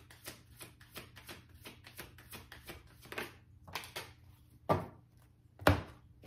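A deck of tarot cards being shuffled by hand: a quick run of light card flicks and taps, with two louder knocks near the end as the deck and a card are set down on the table.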